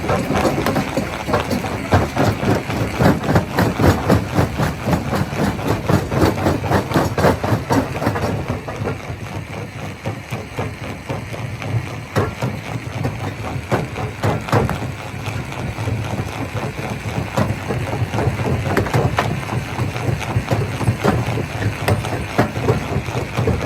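Rock crusher machine running: a steady low engine drone under a dense, rapid clatter and knocking of stone, busiest in the first several seconds.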